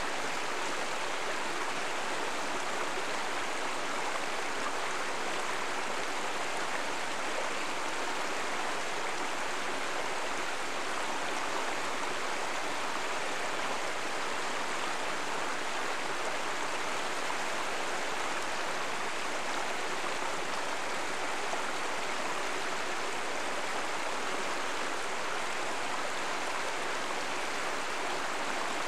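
Steady rush of stream water flowing over rocks, an even unbroken noise.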